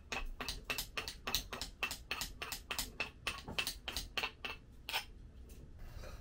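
Wooden pestle pounding in a stone mortar: a steady run of sharp knocks, about four a second, that stops near the end.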